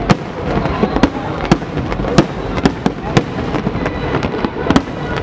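Aerial firework shells bursting in quick succession, sharp bangs about twice a second over a continuous bed of crackling and booming from the display.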